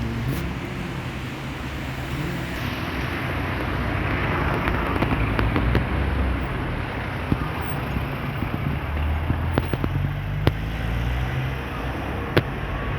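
A motor vehicle's engine running with road noise, and a few sharp clicks in the second half.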